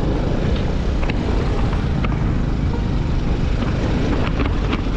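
Vespa scooter riding over a broken, gravelly road: a steady rush of wind and road noise with the scooter running underneath, and a few small knocks as it goes over the rough surface.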